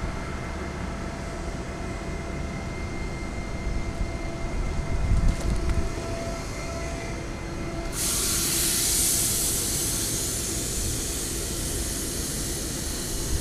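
Cummins M11 inline-six turbo diesel idling steadily, with a steady whine over its low rumble. About eight seconds in, a loud rushing hiss comes in abruptly and carries on over the engine.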